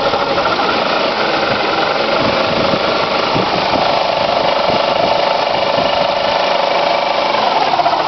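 2005 Pontiac G6's engine running with a steady, loud mechanical noise of unknown cause, which the owner tags as a loud transmission and a helper suspects is a motor mount.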